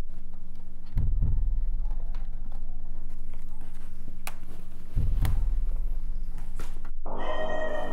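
Suspense film score: a low steady drone with a deep double heartbeat thud about a second in and again about five seconds in. Near the end a dense sustained chord swells in over it.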